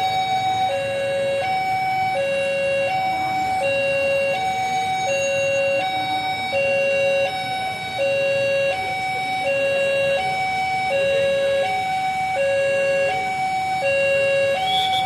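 Railway level-crossing warning alarm: an electronic two-tone chime that swaps steadily between a lower and a higher note, each held about three-quarters of a second. The crossing is active because a train is at or near it.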